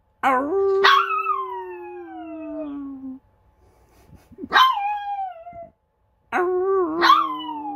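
Maltese dog howling: three howls, each breaking in high and then slowly falling in pitch. The first lasts about three seconds, the second is shorter, and the third runs on past the end.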